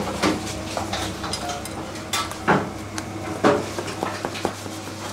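Gloved hands pressing and squeezing mashed potato into a patty in a stainless steel bowl, with several sharp knocks and scrapes against the metal bowl, the loudest about two and a half and three and a half seconds in. A steady low hum runs underneath.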